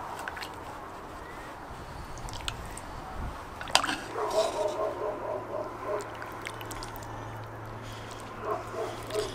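A metal ladle stirring and scooping through thick goulash in a metal kettle, with liquid sloshing and a sharp clink of the ladle against the pot about four seconds in. After it comes a run of short pitched squeaks, several a second, and again briefly near the end.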